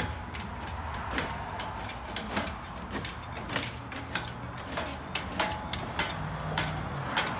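Irregular light clicks and knocks, a few every second, over a steady low hum.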